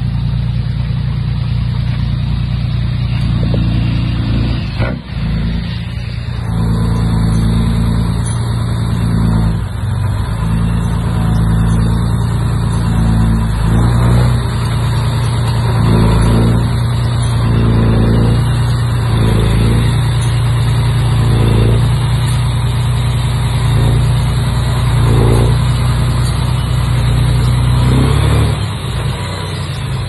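Diesel engine of a Komatsu D31P crawler bulldozer running steadily at working revs. In the second half, short noisy bursts come every second or two over the engine.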